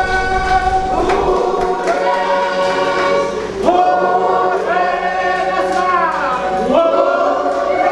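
Church choir singing gospel music in harmony, holding long sustained chords that move to new chords about three and a half seconds in and again near the end, with voices sliding down just before the last change.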